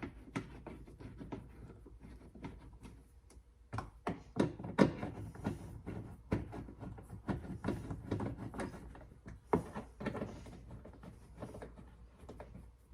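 Irregular clicks and knocks of an Allen key on an extension working the Allen bolts into a car door, with metal tool taps against the door.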